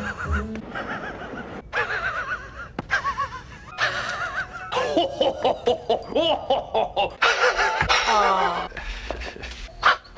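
A man's wheezing, snickering laugh, heard in a string of short clips spliced together with abrupt cuts, over background music.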